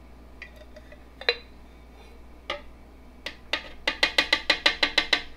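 A plastic spoon scooping cream from a glass mason jar: a few separate clicks, then a quick run of about a dozen light taps, roughly six a second, near the end as the spoon is knocked against a rim to shake the cream off.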